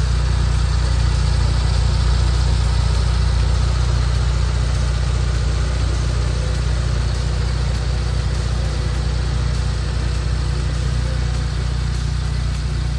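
A 2012 Holden Commodore's 3.6-litre LFX direct-injection V6 idling steadily, its three timing chains freshly replaced.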